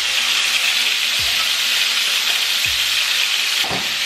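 Seasoned chicken breast pieces sizzling steadily in hot coconut oil in a frying pan, freshly added to the oil.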